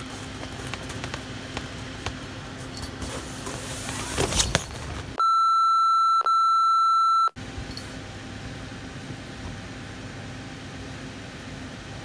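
Censor bleep: a loud, steady high beep about two seconds long, with a tiny break midway, laid over swearing. Before and after it there is only faint rustling of tent fabric and low hiss.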